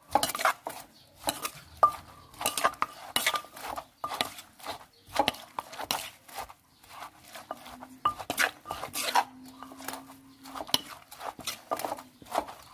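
Dishes and eating utensils clinking and knocking in an irregular series of sharp hits, some with a brief ring.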